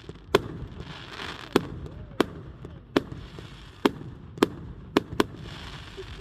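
Fireworks display: a run of sharp firework bangs, about eight in six seconds at uneven spacing, with a faint hiss between them.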